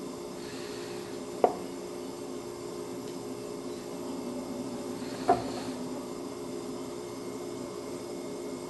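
Knife cutting through a cream-filled chocolate cupcake, the blade tapping sharply against the surface underneath twice, about four seconds apart, over a steady low hum.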